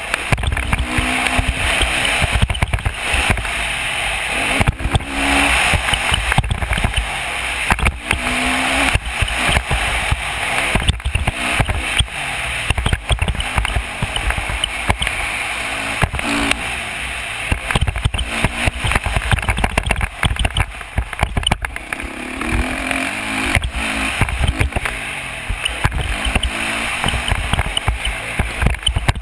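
Dirt bike engine under a helmet-mounted camera, its pitch rising and falling again and again as the rider throttles up and eases off along the track. Heavy wind buffeting on the microphone and jolts from the bumps run through it.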